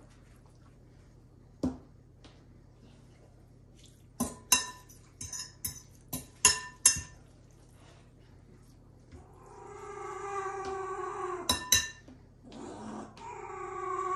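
A serving utensil clinking against a dish in short runs of sharp, ringing taps while enchiladas are filled and packed into a baking dish. A long pitched sound with overtones comes in twice in the second half.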